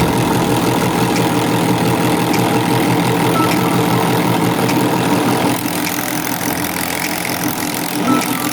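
Rotary swaging machine running, its dies hammering at a fast, even rate as it works a tube; a little quieter from about five and a half seconds in.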